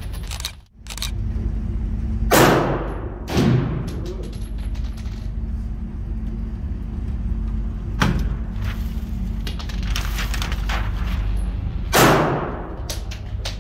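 Four gunshots echoing in an indoor range, about two, three and a half, eight and twelve seconds in, the first and last the loudest. A steady low hum runs beneath them.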